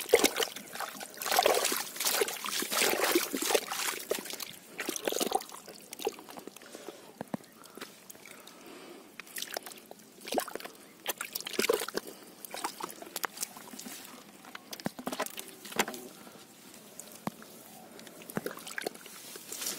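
Hands scooping and working through mud and muddy water in a waterlogged hole: irregular wet sloshes, squelches and small splashes, busiest in the first few seconds and then more scattered.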